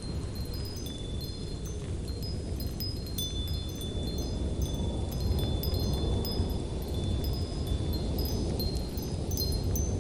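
Steady low wind noise with small wind chimes ringing over it: many short, high, clear notes struck in irregular succession.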